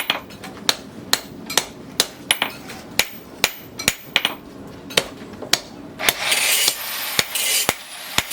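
Hammer blows on rebar steel at the anvil while a knife blade is forged, about two strikes a second with ringing impacts. Near the end the blows stop and a hissing noise lasts about two seconds.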